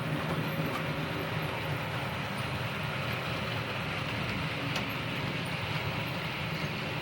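OO gauge model train running along the track: a steady electric motor hum with wheel and rail noise, and one sharp click about five seconds in.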